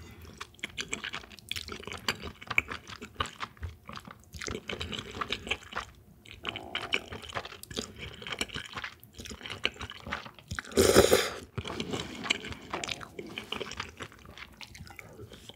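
Close-miked eating of cold soybean-milk noodle soup with chewy jjolmyeon noodles: wet chewing, smacking and slurping with drips of broth, with one louder, longer slurp about eleven seconds in.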